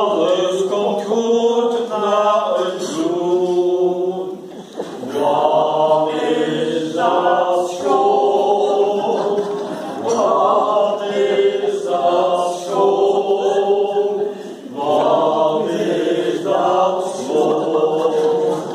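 A small group of men and women singing a song together from song sheets, in short phrases of held notes with a brief break about four and a half seconds in and again near fifteen seconds.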